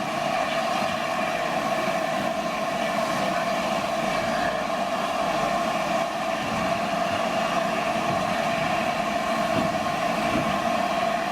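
Steam locomotive 60009 Union of South Africa, an LNER A4 Pacific, giving off a steady, even rush of steam with a few held tones in it.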